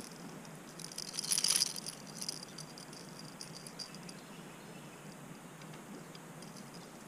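Small metallic clicks and rattles of fishing pliers working a lure's hooks out of a small hooked fish, in a thick cluster about a second in and then scattered, over a faint steady hiss.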